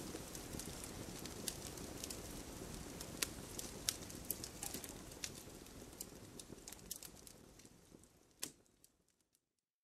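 Faint crackling: a soft hiss with scattered, irregular sharp clicks, fading out over the last few seconds.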